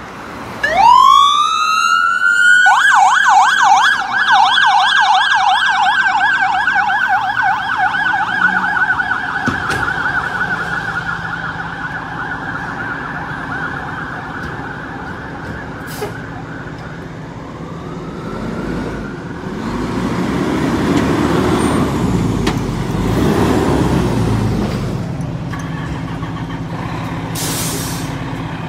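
Electronic emergency-vehicle siren winding up quickly, then switching to a fast yelp that fades as the vehicle drives away. Afterwards a fire engine's diesel engine runs loudly as it pulls out of the station, with a short hiss near the end.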